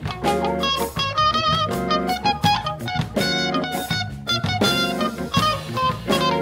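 Live instrumental funk band playing, with electric bass, electric guitar and drum kit carrying a melodic line over a steady groove.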